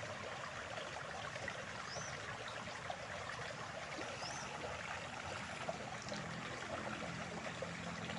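Steady running water, like a small stream or trickle, with a faint short high chirp about every two seconds.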